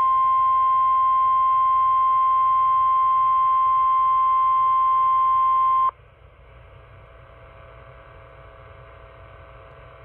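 NOAA Weather Radio 1050 Hz warning alarm tone, one loud steady beep that signals a warning message is about to be read. It cuts off suddenly about six seconds in, leaving faint radio hiss.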